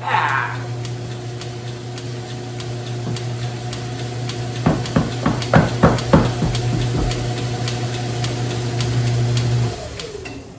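The electric drive motor of a 1935 South Bend lathe runs with a steady hum, powered for the first time after rewiring. A quick cluster of knocks comes about five to seven seconds in. Near the end the motor is switched off and the hum stops.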